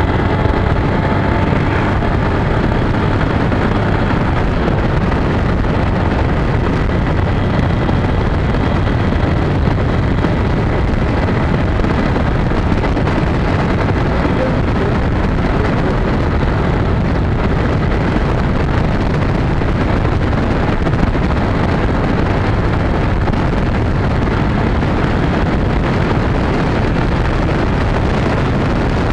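Honda Bros motorcycle's single-cylinder engine running steadily while cruising on a paved road, mixed with heavy wind noise on the handlebar-mounted microphone.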